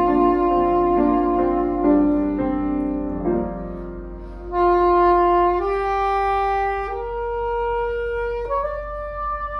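Soprano saxophone playing a slow melody of long held notes, accompanied by a grand piano. The saxophone breaks off briefly about four seconds in, then comes back on a loud sustained note.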